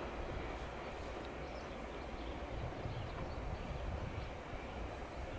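Berlin U-Bahn F74/F76-series train approaching slowly at a distance: a steady low rumble with a few faint clicks.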